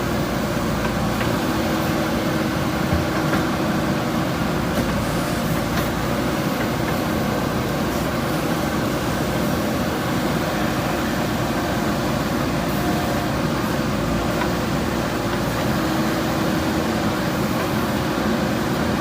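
JCB backhoe loader's diesel engine running steadily, with a faint steady hum.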